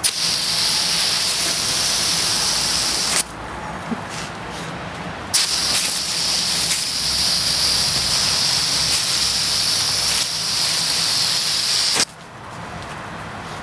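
Water jet spraying with a loud hiss in two runs: it cuts off about three seconds in, comes back about two seconds later, and stops again near the end.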